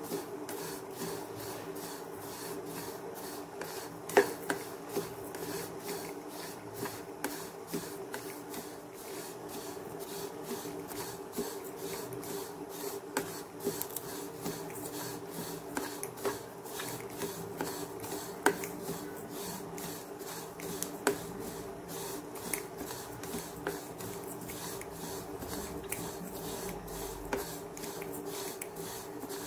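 Black sesame seeds being stirred while they dry-roast in a pan: a repeated scraping rasp of seeds against the pan, several strokes a second, with a few sharper clicks, over a steady hum.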